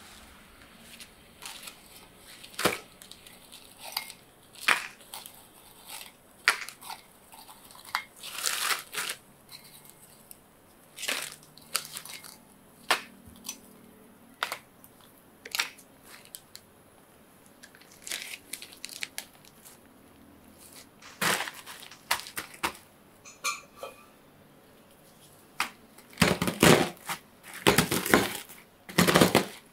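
Plain round biscuits clicking against a glass bowl and a clear plastic bag crinkling as they are put in one by one, in scattered separate clicks and rustles. Near the end a wooden rolling pin starts crushing the biscuits inside the bag: a fast run of louder crunches and crackles.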